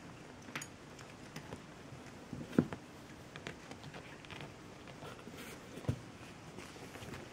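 Maine Coon kittens scrambling about in a cardboard box: light pattering and scratching of paws with scattered taps, and a few dull thumps, the loudest about two and a half seconds in.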